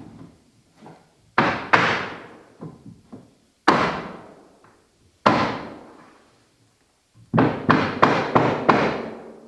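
Hammer blows knocking tongue-and-groove hardwood flooring boards tight together, each hit ringing out. A few single blows are spaced a second or two apart, then a quick run of about five near the end.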